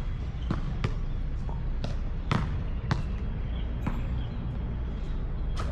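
A basketball bouncing on an outdoor hard court: about seven sharp, unevenly spaced thuds over a steady low rumble.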